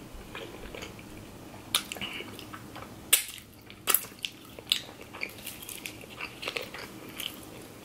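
Close-miked eating sounds: chewing a breaded chicken nugget, with wet lip and finger-licking smacks heard as a string of sharp clicks, the loudest about three seconds in. Near the end a plastic water bottle is handled.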